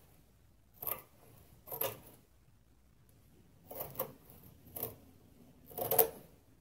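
Scissors snipping through 1 oz fiberglass mat: five short cuts at uneven intervals, the last, about six seconds in, the loudest.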